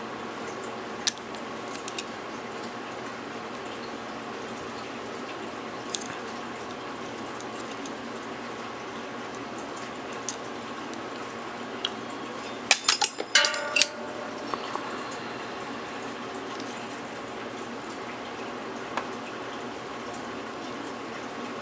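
Master Lock Magnum padlock being picked: scattered light metallic clicks from the pick and pins. About thirteen seconds in comes a brief cluster of louder metal clicks and rattles. A steady background hiss runs underneath.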